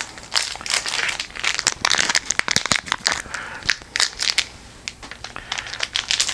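Plastic foil wrapper of a trading-card pack crinkling and crackling as it is worked and torn open, in a rapid, irregular run of sharp crackles.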